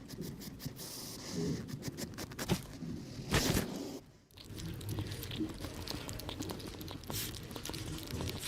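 Mice scurrying and scratching: a dense stream of small clicks, patters and rustles, broken by a short gap about four seconds in.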